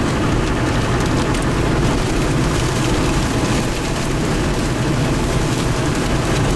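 Loud, steady rush of wind-driven rain and gusts against a moving car, heard from inside the cabin, with road noise beneath.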